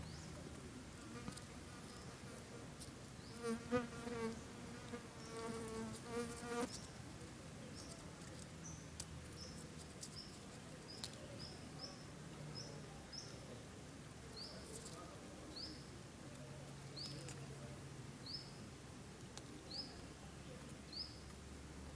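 A flying insect buzzing close by for about three seconds, its hum wavering in pitch. After that comes a series of short, high, rising chirps, about one a second.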